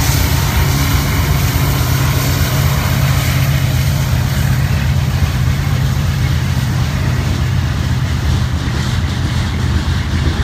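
EMD SD70ACe diesel locomotive's two-stroke V16 engine running as the unit passes close by, its low hum strongest in the first few seconds, then freight cars rolling past with steady wheel-on-rail noise.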